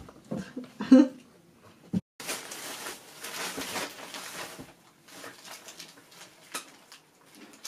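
Newspaper rustling and crinkling as a small pet rummages in torn sheets on a bed, followed by scattered small taps and clicks. A brief loud voiced sound comes about a second in.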